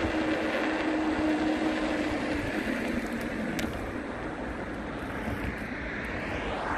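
Steady street traffic noise with a low rumble of wind on the microphone, a steady engine hum that fades out about halfway through, and a vehicle passing close by at the very end.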